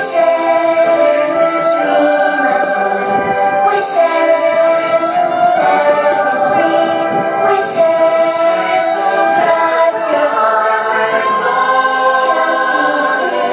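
Fireworks-show soundtrack music: a choir singing long held notes over instrumental backing. No firework booms stand out.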